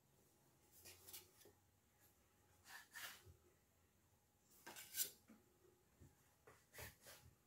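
Near silence broken by a few faint, brief scrapes and rustles, the loudest about five seconds in, as a metal baking tray of shaped biscuit dough is handled.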